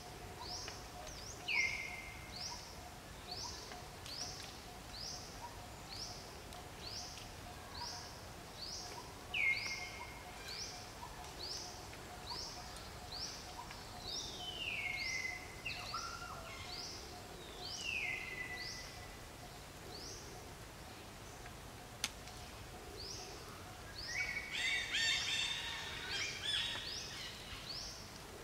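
Outdoor ambience with birds calling: a short high chirp repeated steadily about three times every two seconds, a few longer falling whistles, and a burst of busier, overlapping high calls near the end.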